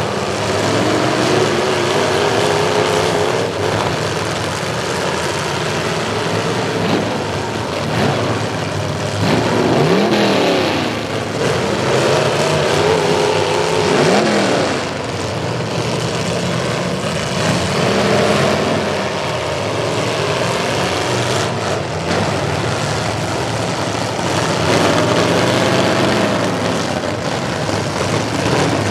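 Several demolition derby trucks' engines running hard and revving together, with steep rises and falls in pitch about ten and fourteen seconds in.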